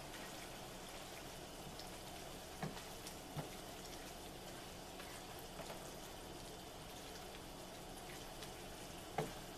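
Sliced pork, bell peppers and onions in barbecue sauce sizzling in a skillet while being stirred, with three light clicks of the utensil against the pan.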